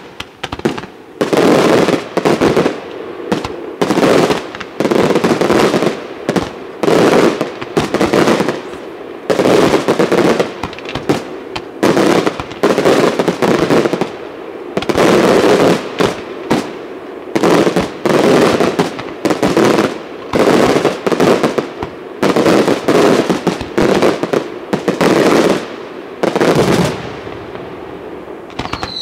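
Fireworks display: aerial shells and comets launching and bursting in rapid succession, a dense run of booms and crackles that comes in loud clusters about every second. It eases off near the end.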